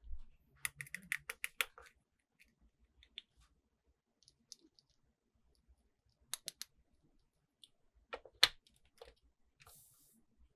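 Plastic toy pieces and packaging being handled: a quick run of about nine clicks a second or so in, scattered light ticks, a few more clicks in the middle, and one sharp, louder click later, followed by a brief soft rustle.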